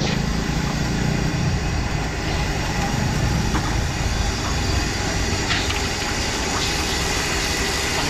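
High-output gas wok burner running at full flame under a wok, a loud, steady rushing noise, with a few faint taps of the ladle against the wok.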